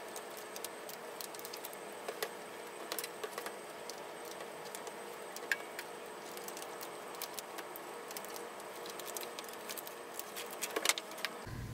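Faint steady room hum with scattered light clicks and rustles of paper cutouts being pulled off a bulletin board, one sharper click about five and a half seconds in.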